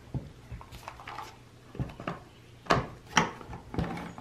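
Orange plastic top cover of a Jon Cutter G5800 chainsaw being fitted onto the saw body: a few light plastic clicks and knocks with some rubbing, the two loudest near the end.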